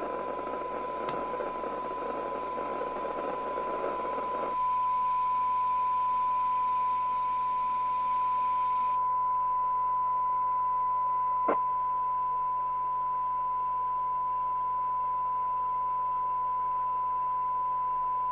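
A Jopix AP6 CB radio's receiver reproducing a steady 1 kHz test tone from a signal generator during a SINAD sensitivity test. At first the tone sits in receiver hiss, as with a weak signal near the threshold; about four and a half seconds in the hiss drops away and the tone carries on almost clean, with a single click later on. The test signal turns out to be off frequency.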